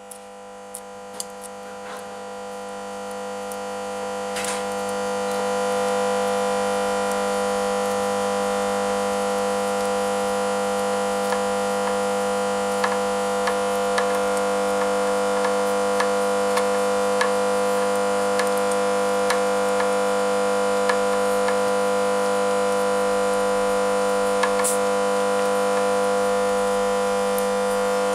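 Steady synthesizer-like drone of several held pitches that never glide, fading in over the first few seconds and then holding level, with faint regular clicks about every 0.7 s.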